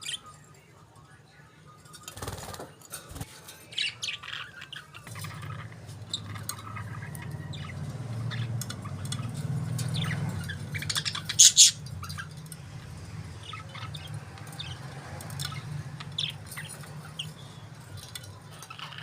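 Pet budgerigars chirping in many short, high calls, with the loudest sharp chirps about halfway through. A low steady hum runs underneath from about a quarter of the way in.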